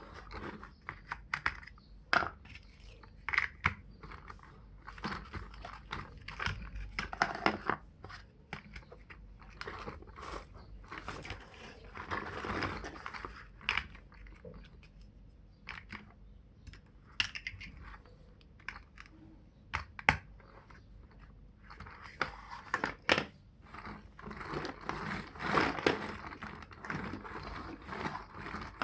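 Plastic building blocks being handled and snapped together: irregular sharp clicks and taps, with stretches of rustling and rattling as pieces are sorted and pressed into place.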